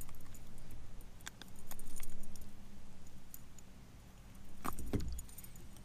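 Light metallic jingling and clicking of a metal spinner lure's hooks and blades as it is worked free of a landed largemouth bass's mouth by hand, with handling bumps and a low rumble underneath.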